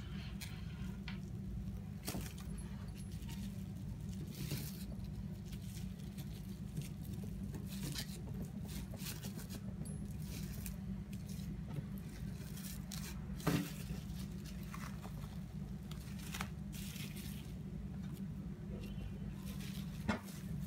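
Plastic cling film crinkling and rustling as hands roll and squeeze a wrapped chocolate cake log on a wooden table, in scattered short crackles with one louder one about thirteen seconds in, over a steady low hum.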